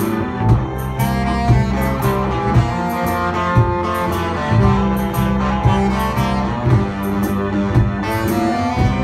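Live blues combo playing: a saxophone carries the melody over electric guitar, keyboard and drums, with a drum hit about once a second.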